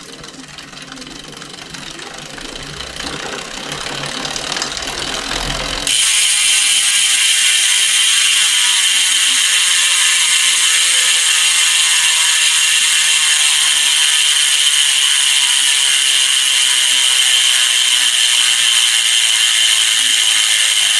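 Novatec Jetfly rear hub's freehub pawls clicking while the wheel coasts: a whirr that grows louder for about six seconds, then an abrupt switch to a loud, crisp, steady ratcheting buzz. Underneath, faint tones slowly fall in pitch as the wheel slows.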